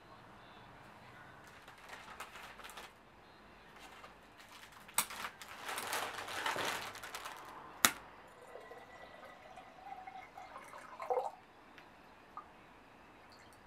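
Cellophane flower wrapping crinkling, with a couple of sharp clicks. Then water is poured into a ceramic jug, and the tone slowly rises as the jug fills.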